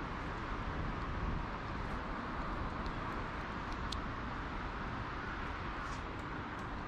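Steady distant road-traffic noise with a few faint light clicks.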